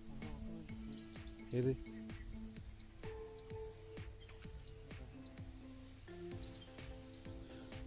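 Crickets trilling in a steady, high, unbroken chorus, with faint sustained low tones underneath.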